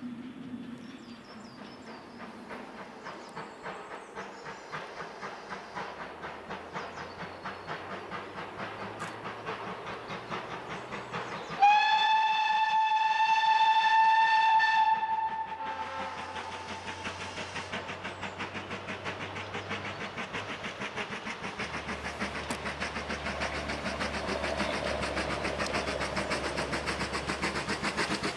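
GWR 4575 class prairie tank locomotive 5541 approaching under steam, its exhaust beats steady and growing louder as it nears. About a third of the way in it sounds one long whistle of about three seconds, the loudest thing heard.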